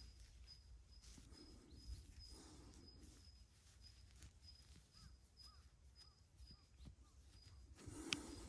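Near silence outdoors with faint small-bird chirps: a thin high note repeating a few times a second and a few short chirps in the middle, and one sharp click about eight seconds in.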